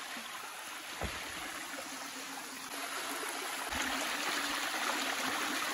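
Spring water running out of the rock and trickling down over stone in a steady rush, which grows louder about two-thirds of the way in. A single soft thump comes about a second in.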